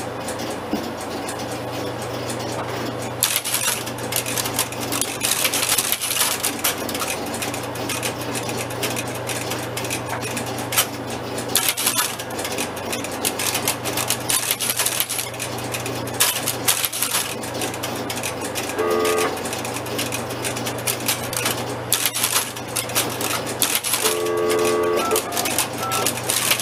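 Relays and crossbar switches of a 1971 Fujitsu crossbar PBX clicking and clattering irregularly as the exchange operates, over a steady electrical hum. Short telephone tones sound twice, about two-thirds of the way through and again near the end.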